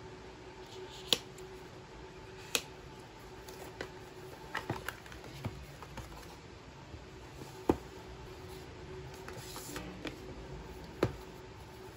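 Cardboard and paper packaging of an Apple Watch SE box being handled and opened: a series of sharp taps and clicks as the box and its pieces are knocked and set down on the desk, four of them loud, with a brief rustle of paper near the end.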